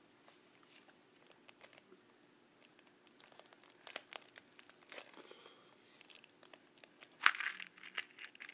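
Yellow plastic Kinder Surprise toy capsule being handled with faint scattered clicks, then snapping open with a sharp click about seven seconds in, followed by a few smaller clicks.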